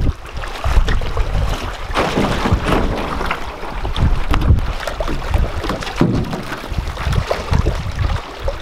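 Wind buffeting the microphone, over splashing and irregular knocks as an aluminium canoe is pushed out through shallow water over stones by someone wading alongside.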